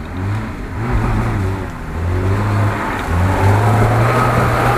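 Lada Niva's engine revving unevenly as the SUV drives slowly through a muddy forest rut, growing louder as it approaches.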